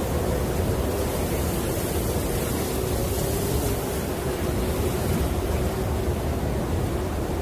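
Snowstorm wind blowing steadily: a dense rushing noise with a low, slightly wavering tone underneath.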